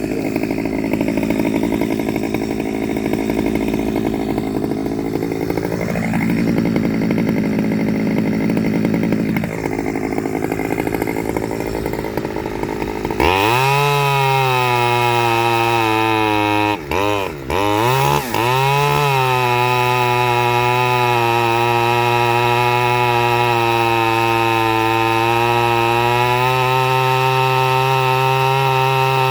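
Stihl 009L two-stroke chainsaw on its standard carburettor, first running at lower, uneven revs with a couple of brief rises and falls, as if labouring in the wood. About halfway through it jumps suddenly to a steady high-pitched full-throttle run, drops briefly two or three times, then holds high revs.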